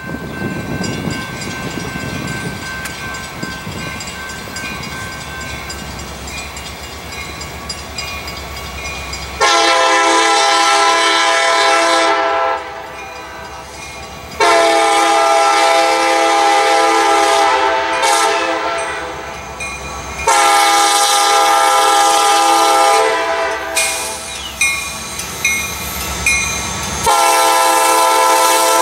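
Air horn of a CSX SD70MAC diesel locomotive sounding a grade-crossing warning as it approaches: three long blasts, a few brief toots, then another long blast near the end. Before the horn, the low rumble of the approaching locomotive.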